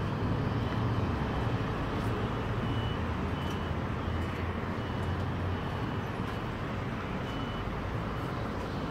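Steady urban background noise with a low rumble of distant road traffic; faint short high beeps come and go.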